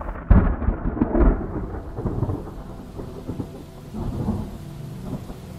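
A thunderclap: a sudden loud crack about a quarter second in that rolls on for about a second and fades, then a second, softer rumble about four seconds in, over steady rain.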